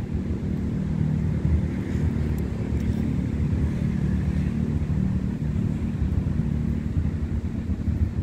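A vehicle engine idling: a steady low rumble with a faint hum in it.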